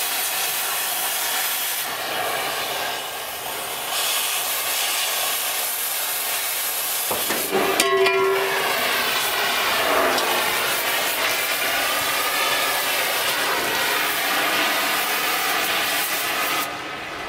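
Oxy-fuel cutting torch hissing steadily as it cuts through the steel wall of a diesel tank. About eight seconds in there is a metallic clatter with a brief ringing tone as the cut-out steel port drops free. The torch then runs on and is shut off near the end.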